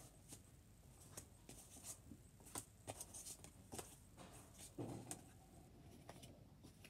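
Faint rustling and soft clicks of glossy card-stock photo cards being slid and shuffled by hand, with a slightly fuller brushing sound about five seconds in.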